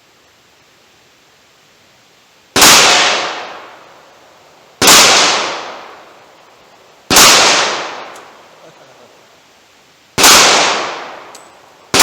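Glock 41 pistol firing hand-loaded .45 ACP rounds: four single shots two to three seconds apart, each a sharp crack trailing off over about a second, with another shot right at the end.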